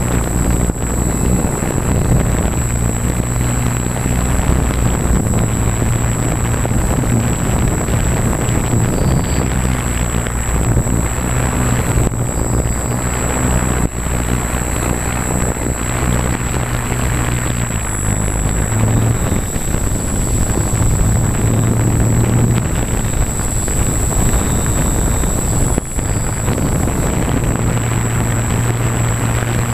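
Zion EX700 multicopter's electric motors and propellers whirring in flight, a steady drone whose low hum steps up and down in pitch as the motors change speed, over a rush of air and a thin high whine.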